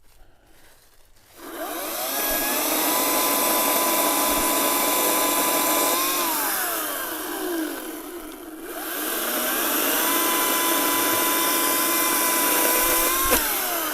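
Echo 58V battery chainsaw revved twice: each time the electric motor whines up quickly to a steady high pitch, holds for about four seconds, and winds down as the trigger is released.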